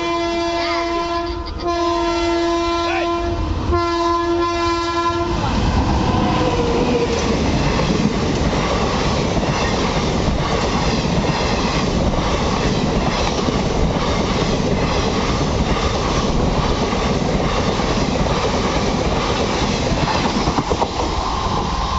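Locomotive horn of an Indian Railways express train blaring in repeated blasts for about the first five seconds. Then the train passes at speed: a loud steady rush with fast wheel clatter over the rail joints.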